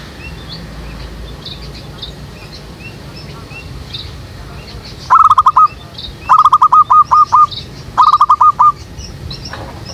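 Zebra dove cooing: three loud phrases of quick, repeated notes, the first about halfway through. Small birds chirp faintly throughout.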